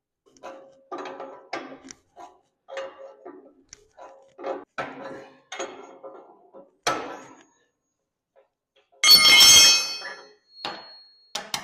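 Hand tools working on the tractor's metal front-end parts: a run of short metallic clinks and knocks, many with the same ringing note, then about nine seconds in a loud ringing metallic clang lasting about a second.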